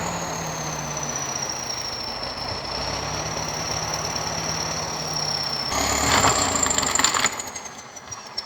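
An engine running steadily, with a high whine above it. About six seconds in it gets louder with rattling and clatter, then eases off and drops away near the end.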